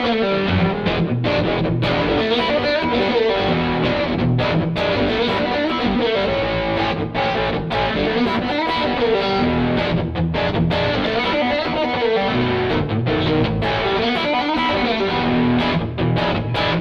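Stratocaster electric guitar played through a Flex15 single-ended tube amp and 2x12 cabinet, with the boost maxed on the overdrive channel: blues lead lines and bends with a driven, distorted tone.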